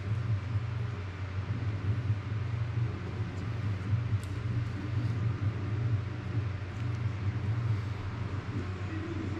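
Steady low rumbling hum, with a few faint small clicks.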